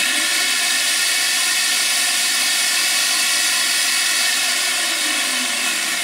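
Electric jigsaw running at full speed with its blade in the air, a loud, steady motor whine with a rattling, hissy edge.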